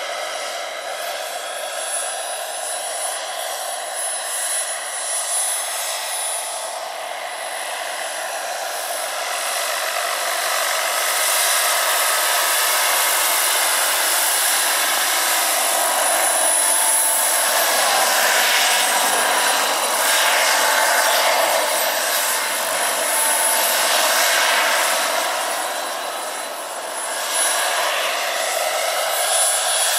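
Jakadofsky Pro 6000 turbine and rotor of a giant radio-controlled Gazelle scale model helicopter in flight: a continuous jet-like rush with a steady high whine, growing louder through the middle as the helicopter passes close.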